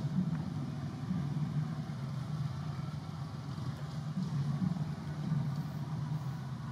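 A steady low engine hum, like a motor idling, that runs unbroken.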